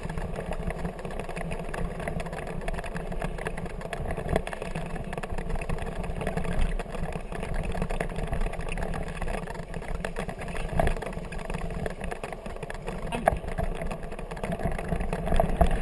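Kickbike rolling fast over a bumpy grass trail: a steady rumbling rush of wheels and wind on the camera, with a few sharp knocks as it jolts over the ground.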